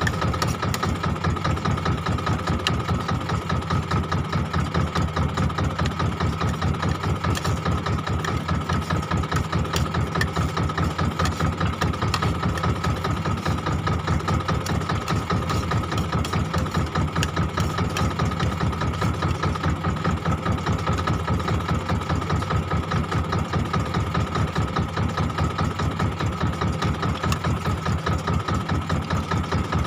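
A wooden fishing boat's inboard engine idling: a steady, evenly pulsing chug that never changes pace.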